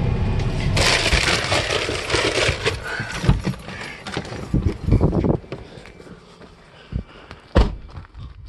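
Car cabin noise with a loud rush of wind-like noise for about two seconds, then the noise falls away and a few dull thumps and knocks follow.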